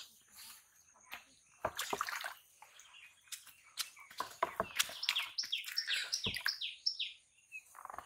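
A caught fish flopping on bare dirt, landing with a few short dull thuds. In the second half a bird calls a quick run of short falling notes, about three a second.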